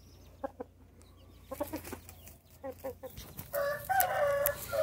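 Rooster clucking in short calls, then crowing once near the end with a call about a second long.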